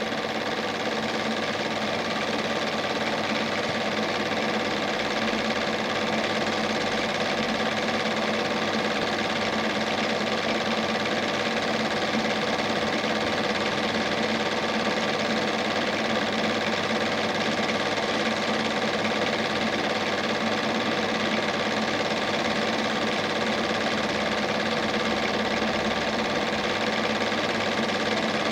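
A Standard 8 cine projector running steadily: a constant mechanical whirr with a steady hum.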